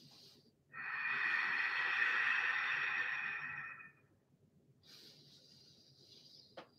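A person's deep, audible yoga breathing: one long, loud breath lasting about three seconds, then a softer, shorter breath. There is a small click near the end.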